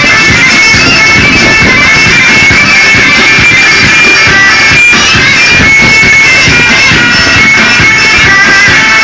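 Loud Egyptian folk music for a tanoura whirling dance: a shrill, bagpipe-like reed melody in long held notes over busy, fast drumming.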